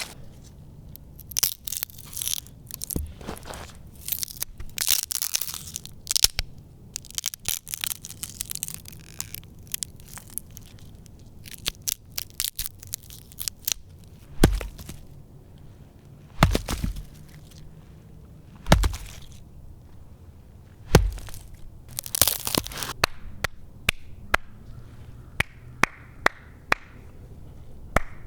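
Foley handling sounds: irregular crackling and crunching for the first half, then four heavy thuds about two seconds apart, a short noisy scrape, and a run of sharp clicks near the end.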